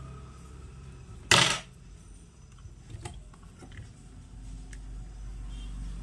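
A small metal tool clattering down on a workbench once, about a second in, followed by a few faint clicks of tools and parts being handled, over a steady low hum.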